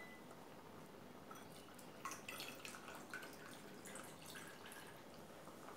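Cold water poured from a glass tumbler into a glass bowl of cornflour: faint dripping and small splashes, starting about two seconds in.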